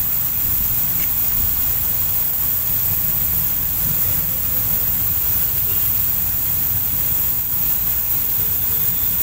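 Steady low rumble with a constant hiss over it; no distinct knocks or handling sounds stand out.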